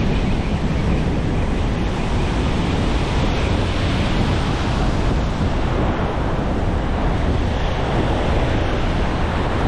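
Ocean surf breaking and washing across the sand shallows: a steady rush of water, with wind rumbling on the microphone.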